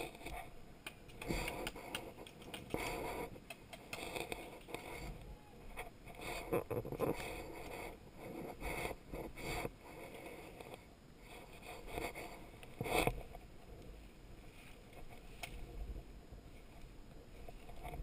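Rustling and scraping of branches, dry leaves and clothing or gear close to the camera as a player shifts and moves through dense brush, in irregular bursts with the loudest a little before two-thirds of the way through.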